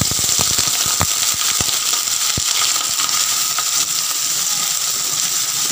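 Raw potato cubes sizzling in hot mustard oil in a kadhai. Several clicks and knocks from the pieces landing and the wooden spatula come in the first couple of seconds, then a steady sizzle.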